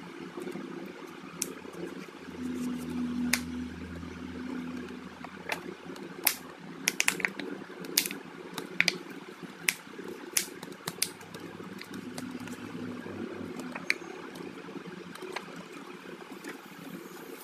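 Plastic pry card being worked under a Huawei Y9 2019 phone battery to lever it off its adhesive, with scattered sharp clicks and crackles, thickest in the middle. A steady hiss lies underneath, and a low hum comes in twice.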